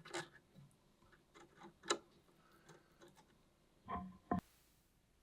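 Faint scattered clicks and taps of hands and small tools handling bark and an orchid, with two sharper knocks about four seconds in, then a brief hiss.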